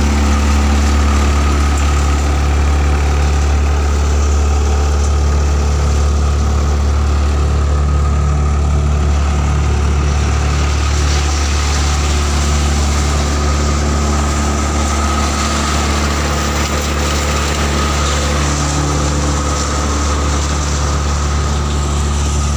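Tractor-driven multicrop thresher running steadily while threshing groundnut: the tractor engine's low hum mixed with the whir and rattle of the threshing drum, at an even pace with no change.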